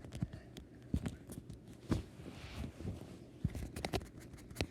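Irregular knocks, thumps and small clicks of plush toys and their surroundings being shaken and handled to act out a pretend earthquake.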